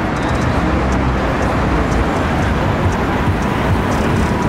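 Toyota MR2 Spyder's 1.8-litre four-cylinder engine running at low revs as the car rolls slowly past close by, over a steady low rumble.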